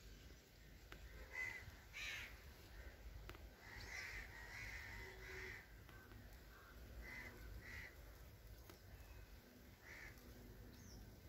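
Faint, short, harsh bird calls like cawing, some single and one quick run of three, over a low background rumble.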